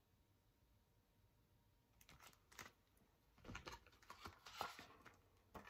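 Near silence, then from about two seconds in faint rustling and scattered soft clicks of a hardcover picture book being handled and opened.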